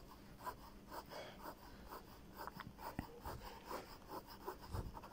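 Ballpoint pen scratching faintly across paper in quick, short hatching strokes, several a second.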